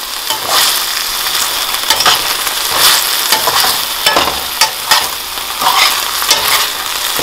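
Chopped spring onions sizzling in oil in a stainless steel sauté pan, being sautéed to soften, while a slotted metal spoon stirs them with irregular scrapes against the pan.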